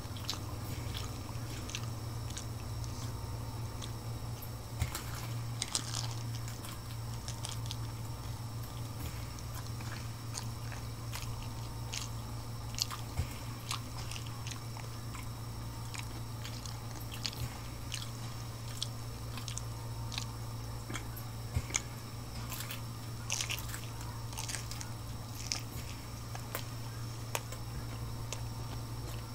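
Close-up chewing and biting of crunchy corn taco shells filled with Salisbury steak and macaroni and cheese: irregular crisp crunches and mouth sounds, over a steady low hum.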